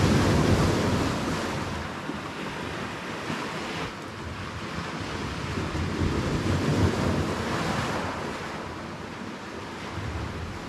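Sea waves washing with wind buffeting the microphone, the noise swelling and easing in slow surges every few seconds.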